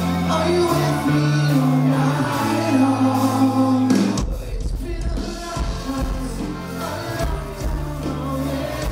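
Rock band playing live with a sung vocal over held chords. About four seconds in the music changes abruptly, with deep bass and drum hits taking over.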